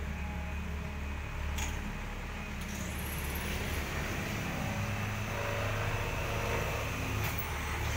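Steady low background rumble with a few faint clicks.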